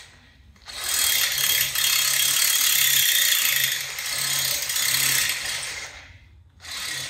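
Cordless drill running under load, drilling into a part for about five seconds, then a second short burst near the end.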